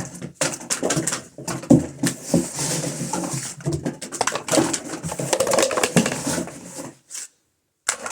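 Cardboard toilet-paper tubes and paper rustling and clattering, with many quick knocks. The sound cuts off suddenly about seven seconds in, and one more knock comes near the end.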